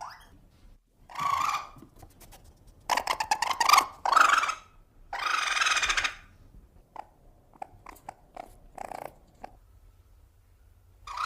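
Baby-monster creature sound effects: short growling calls, a rapid rattling trill about three seconds in, a long breathy hiss near the middle, then a run of small clicks, with another call at the end.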